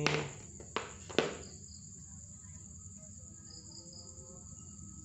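Three sharp metallic clinks in the first second and a half as a steel bicycle crank arm and pedal knock together in the hands, over a steady high chirring of crickets.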